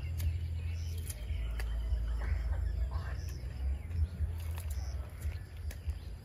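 A dry leaf rustling and crackling in the hand as it is lit with a lighter for kindling, with several sharp clicks over a steady low rumble.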